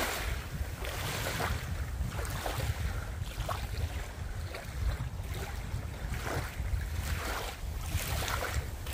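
Small waves lapping and splashing irregularly against a lake shore, under a steady low rumble of wind on the microphone.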